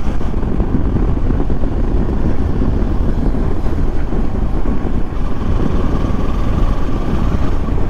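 Wind buffeting the microphone over the steady drone of a Kawasaki Versys motorcycle being ridden at highway speed.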